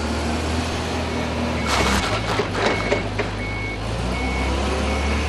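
Counterbalance forklift engine running steadily while its reversing alarm beeps at an even pace, about once a second. About two seconds in, a rough scrubbing burst with a few clattery knocks comes as the truck changes direction and its engine note shifts.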